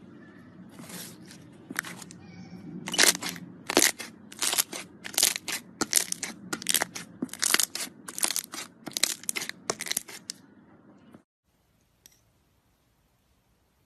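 Slime being squeezed and pressed by hand, giving a run of crunchy, crackling squelches about every three quarters of a second that stop abruptly.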